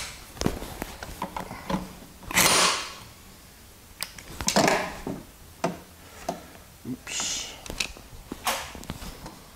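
Pneumatic impact wrench on the flywheel nut of a Tecumseh small engine, giving about four short bursts, the loudest a few seconds in, as it works to loosen the nut, with clicks and knocks of the tool being set on the nut between bursts.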